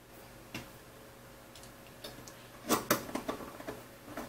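Light clicks and taps of small metal hardware, T-slot nuts and screws, being handled against a wooden tabletop, with a louder cluster of clicks a little under three seconds in.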